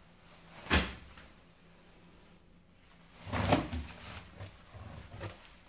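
A single sharp knock about a second in, then a run of rustles and soft bumps as a cloth towel is handled against the base of a front-loading washing machine.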